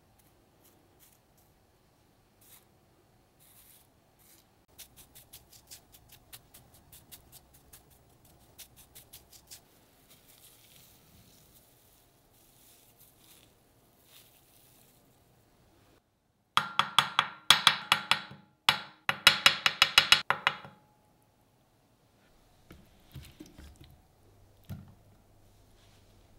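Kitchen food-handling sounds: soft rubbing and light taps, then two bursts of loud, rapid clatter of about two seconds each, a little past halfway.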